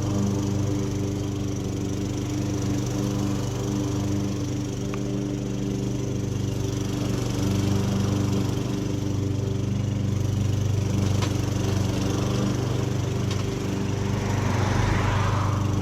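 Toro push mower's single-cylinder engine running at a steady speed, now fitted with the correct carburetor. A short rushing noise rises over it near the end.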